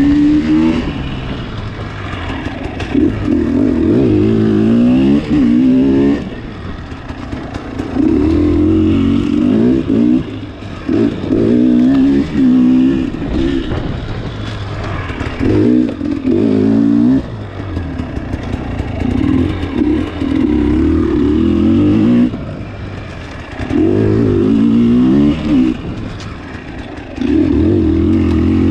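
Dirt bike engine revving up in about seven bursts of throttle, each rising in pitch over a few seconds, then dropping back to a quieter off-throttle running between them, as the bike is ridden along a twisty sandy trail.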